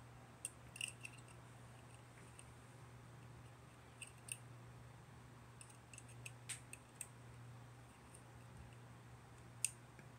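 Plastic Gundam model-kit parts being cut from the runner and fitted together: a scattering of short, sharp snips and clicks, about a dozen at irregular intervals.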